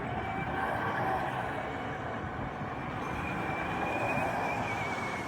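Small go-kart engines running with a steady drone, their whine wavering in pitch as they speed along the track.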